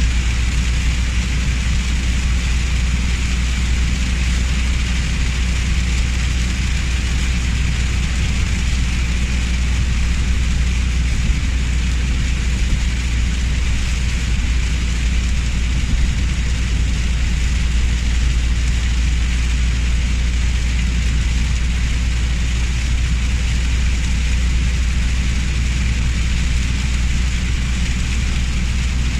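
Heavy rain hissing steadily over a constant low vehicle rumble, with no change in level.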